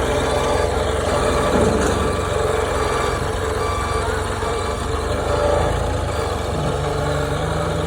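Diesel engine of a JCB 3CX backhoe loader running steadily at an even, low speed.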